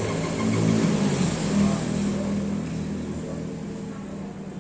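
A passing motor vehicle's engine hum that swells about a second in and then fades away.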